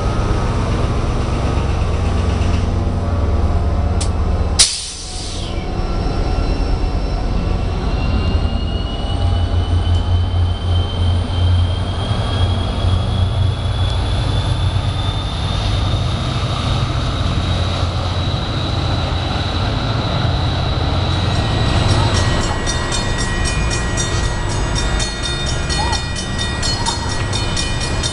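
NJ Transit F40PH-2CAT diesel locomotive running with a low, steady engine drone. About five seconds in the sound cuts sharply, and then a thin whine rises slowly in pitch for about fifteen seconds as the locomotive pulls away.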